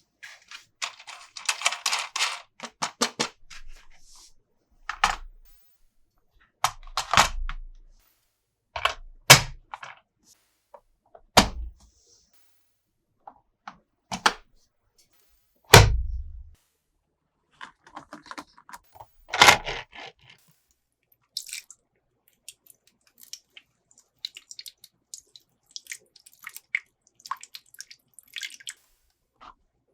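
Plastic toy pieces being handled and knocked together. A short rattling clatter comes near the start, then a string of separate knocks and thuds, the heaviest about 16 seconds in, and lighter scattered clicks toward the end.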